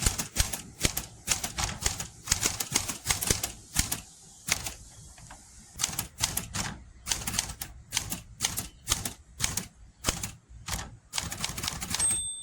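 Smith Corona Galaxy manual typewriter being typed on: quick runs of key strikes, several a second, with a short pause about four seconds in. Near the end the margin bell rings once.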